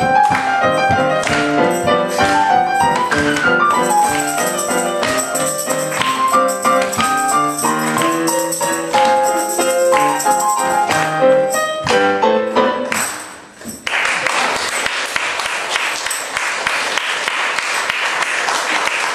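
A lively tune played on a keyboard, with a tambourine jingling and struck in time. The music stops about 13 seconds in and is followed by applause.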